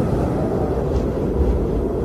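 Strong wind blowing steadily: a dense, low rumbling rush with little high-pitched hiss.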